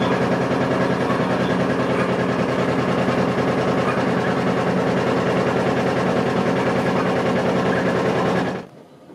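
Steady mechanical running noise aboard Leeds tramcar 180: a low hum with a fast, even rattle, which cuts off suddenly near the end.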